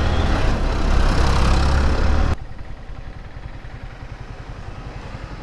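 Wind buffeting the microphone over the Yamaha R15 V3's engine while riding, then an abrupt drop about two seconds in to the quieter, evenly pulsing run of the bike's 155 cc single-cylinder engine idling.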